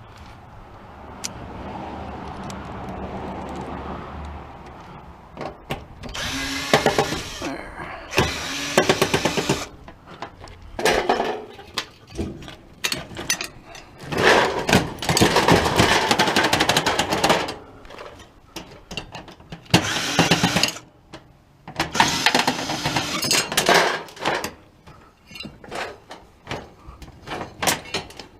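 Cordless drill-driver running in repeated short bursts, a second or two each, backing screws out of a stove's sheet-metal panels.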